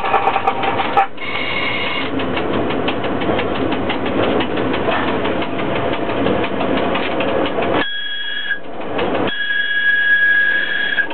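Cab noise of a ChS4T electric locomotive under way, with a rapid run of clicks. A steady high whistle sounds briefly near the end, breaks off, then sounds again for about two seconds.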